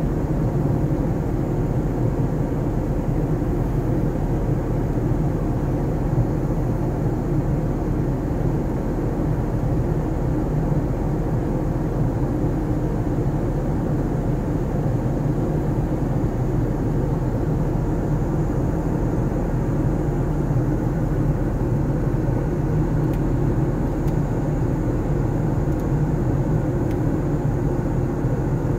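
Steady low rumble and rush of an Airbus A380's jet engines and airflow in cruise, heard inside the cabin at a window seat over the wing.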